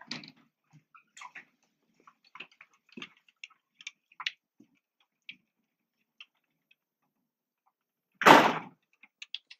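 Light, scattered footsteps and handling clicks while walking, with one louder half-second rush of noise about eight seconds in.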